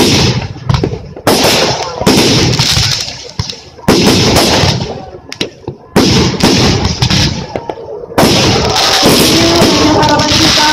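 Aerial fireworks bursting in quick succession: about six sudden loud bangs, each followed by a fading noisy tail.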